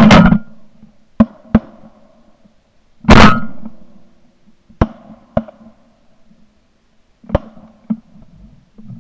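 Shotgun reports heard from the gun-mounted camera. Two loud blasts come about three seconds apart, and several shorter, quieter cracks fall between and after them.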